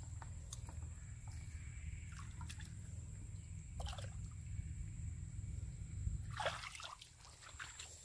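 Shallow muddy water sloshing and dripping as hands grope through it, with scattered small splashes; the loudest is a short flurry of splashing about six and a half seconds in.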